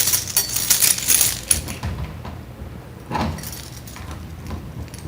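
Door lock being worked: a quick run of metallic rattles and clicks for about two seconds, then a single heavier click about three seconds in.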